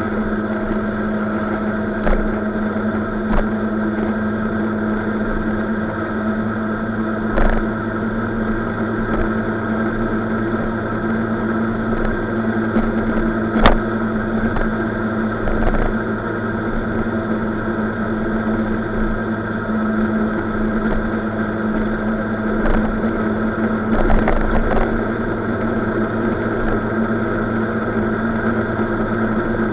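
Scooter engine running steadily at highway cruising speed, a constant hum that holds one pitch, with wind and road noise and a few brief knocks from bumps in the road.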